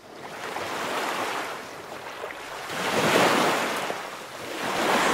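Ocean surf: waves washing in, swelling and falling away about every two seconds, three surges in all.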